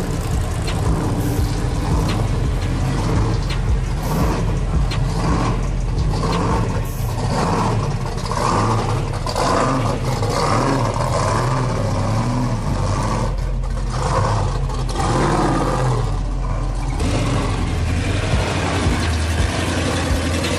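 A vehicle engine running steadily, a low hum with uneven noise layered above it.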